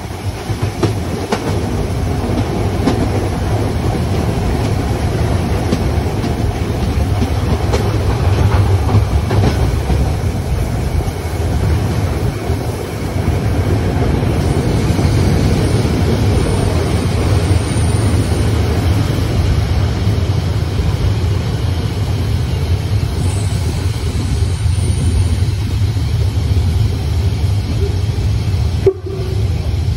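Harz narrow-gauge steam tank locomotive 99 7245-6 (DR class 99.23–24) heard from its footplate: a steady running rumble with the clickety-clack of wheels over the rails. A faint high squeal comes twice in the middle.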